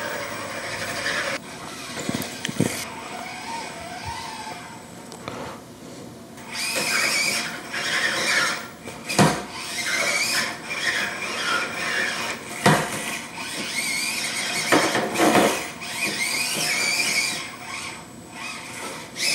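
Axial SCX24 micro RC crawler's small electric motor and gears whining, the pitch rising and falling with the throttle as it claws up plywood ramps. Tyres scrabble on the wood, and the chassis knocks sharply on it a few times.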